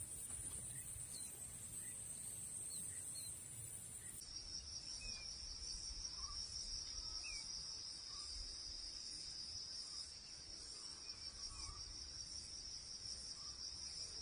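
Steady high-pitched drone of insects in the swamp grass, dropping to a lower steady pitch about four seconds in, with a few faint short chirps over it.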